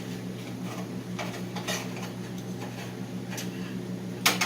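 A few light metallic clicks and clinks of small door-handle parts and hand tools being handled, with a sharper clink about four seconds in, over a steady low hum.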